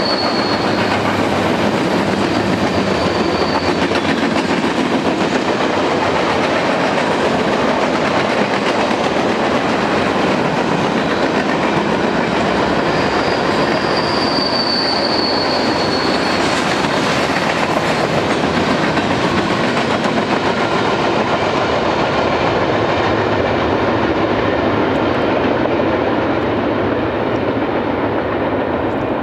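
Empty covered hopper cars of a freight train rolling steadily past at close range, with two brief high wheel squeals, one near the start and one about halfway through. The sound grows duller near the end as the last cars move away.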